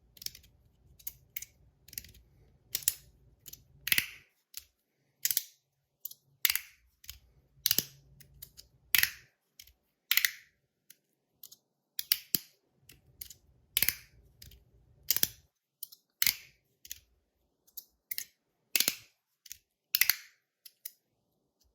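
Magnetic metal slider fidget (a Skelly with a hybrid magnet setup) being slid back and forth, snapping into its stops with sharp clicks about once or twice a second, some doubled and with a short metallic ring after the louder ones.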